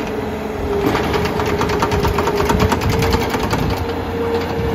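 Skid steer loader engine running with a steady whine, and a fast, even rattling clatter from about a second in until near the end as the machine works.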